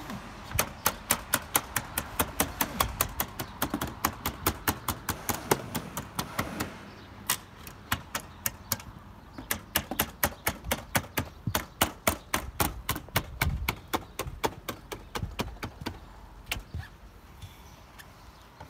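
Quick run of sharp metallic clicks or taps, about three or four a second, from roofers working the edges of aluminium standing-seam roof panels with hand tools; the rhythm breaks off briefly about seven seconds in, then picks up again and thins out near the end.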